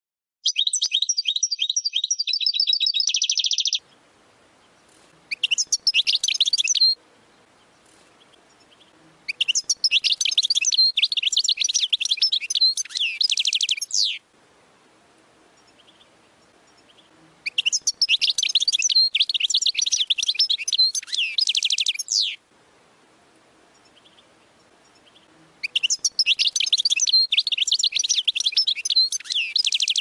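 European goldfinch singing: a short rapid trill just after the start, then one brief and three long phrases of fast twittering song, each lasting about five seconds, with pauses between them.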